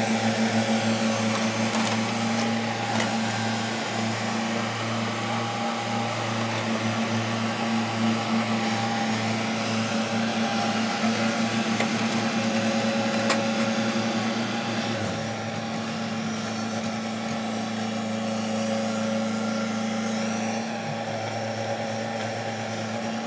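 JCB tracked excavator's diesel engine running steadily as the machine digs, heard close up; the engine note shifts briefly about fifteen seconds in.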